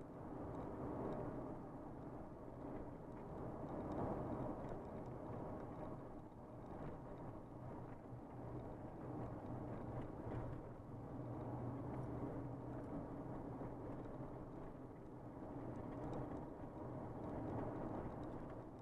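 A car or truck driving along a road: a steady engine hum under road and tyre noise, swelling and easing a little in loudness.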